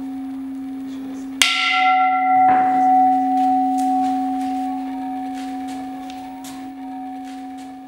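Large black Buddhist temple bowl bell (qing) already ringing with a low hum, struck again about a second and a half in with a wooden striker: a bright attack, then a long ring that slowly fades.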